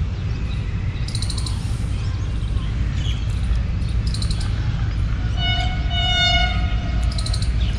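A diesel locomotive horn from an approaching train gives one blast of about a second and a half, a little over five seconds in, over a steady low rumble. It signals a train coming to run through the station without stopping.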